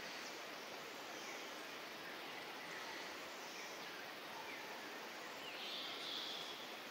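Outdoor ambience: a steady background hiss with faint, scattered high chirps, and a slightly louder high buzzing patch about six seconds in.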